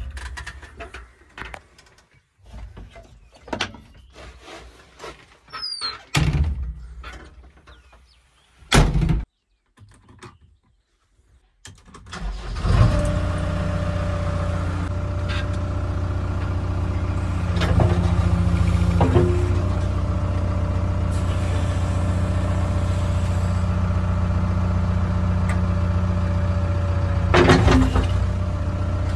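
Clicks and knocks inside a JCB backhoe loader's cab, with short quiet gaps. About twelve seconds in, the backhoe's diesel engine starts and then runs steadily, with a few clunks over it later on.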